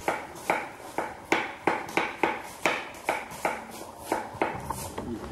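Kitchen knife slicing an onion thinly into half-rings on a wooden cutting board: a steady run of sharp knocks, about three a second, as the blade strikes the board.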